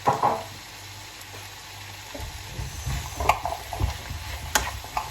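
Onion, peppers, celery and carrots frying in butter in a pan, with a loud burst of sizzling right at the start. From about two seconds in they are stirred, the utensil scraping and clacking sharply against the pan.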